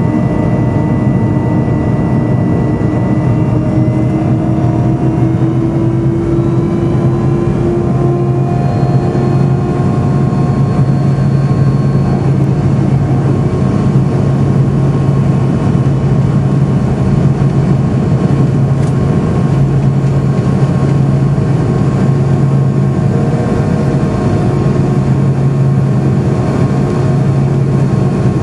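Cabin noise inside an MD-82 descending on approach: its rear-mounted Pratt & Whitney JT8D turbofans and the airflow make a loud, steady roar with a deep hum. Several engine tones rise slightly in pitch a few seconds in, then hold steady.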